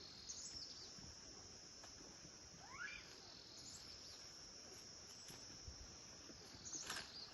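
Night insects chirring in a steady high-pitched drone. A faint rising call comes about three seconds in, and a short click near the end.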